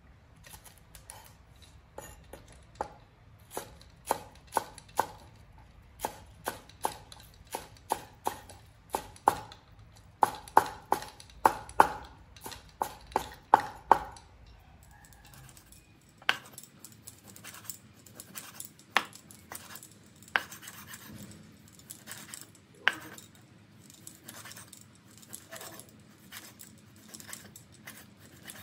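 A steel cleaver chopping green onions on a wooden cutting board: a steady run of sharp knocks, about two a second, for the first half. After a pause come fewer, scattered knocks and scraping as the cleaver slices raw beef on the board.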